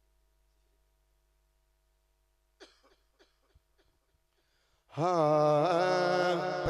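Near silence with a few faint clicks of a handheld microphone being handled, then about five seconds in a man's voice comes in loud over the microphone, holding one long drawn-out note with a wavering pitch as the naat reciter begins.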